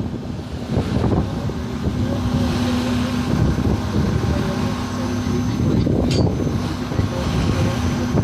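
Tour boat's engine running steadily, with wind buffeting the microphone and one short click about six seconds in.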